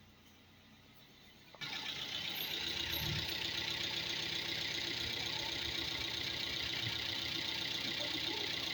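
Toyota Etios Valco engine idling steadily with its newly fitted drive belt running; the sound comes in abruptly about one and a half seconds in, after a near-quiet start.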